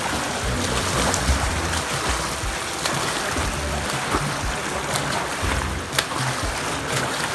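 Steady rushing and splashing of water from open-water swimming, with scattered small splashes and clicks.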